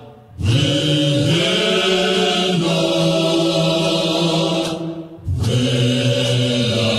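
Gospel choir of men's voices singing in harmony in long held notes, pausing briefly near the start and again about five seconds in.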